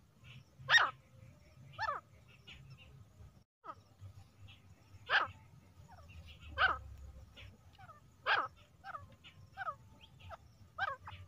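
Female grey francolin calling: loud, sharp calls that sweep down in pitch, about five strong ones a second or two apart with softer notes between. A faint low hum runs under them, and there is a brief dropout about three and a half seconds in.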